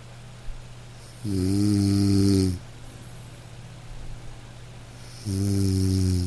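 A dog snoring in its sleep: two long, humming snores about four seconds apart, each lasting over a second. A steady hiss of light rain runs underneath.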